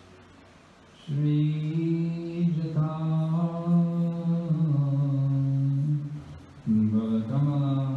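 A man chanting a mantra in long, drawn-out notes, starting about a second in; the pitch steps down through the phrase, and after a brief break near the end a new phrase begins.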